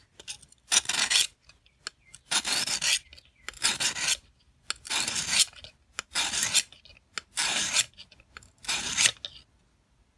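A steel knife blade drawn over an oiled coarse sharpening stone in a guided-angle sharpening kit: seven rasping scrape strokes, evenly spaced about a second and a half apart, with short pauses between them.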